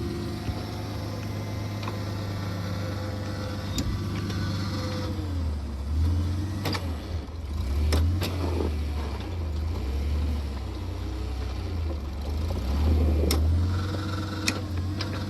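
Engine of a post-hole auger rig running steadily. Through the middle it labours and eases unevenly as the auger works the hole in frozen, root-filled ground, with a few sharp metallic clanks.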